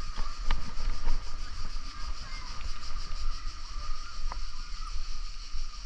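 Wind buffeting the microphone of a camera on a moving bicycle: an uneven low rumble that keeps rising and falling, over a steady high hiss and hum, with a few light clicks, including one about four seconds in.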